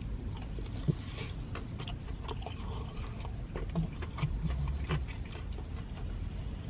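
A man biting into and chewing a hand-breaded chicken tender, with scattered small crackles and clicks from the breading.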